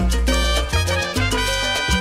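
Upbeat Latin salsa-style background music with brass and a driving bass line.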